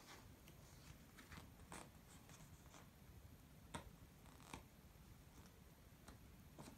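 Near silence, with a few faint taps and rustles of a cardboard picture book's pages and flaps being handled.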